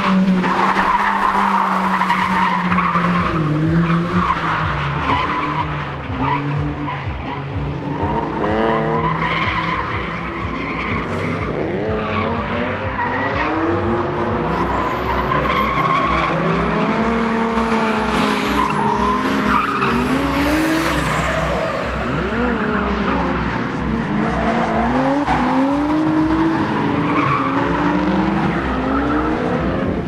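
Volvo 740GL sedan drifting: the engine revs up and down over and over while the tyres squeal, the squeal loudest in the first few seconds.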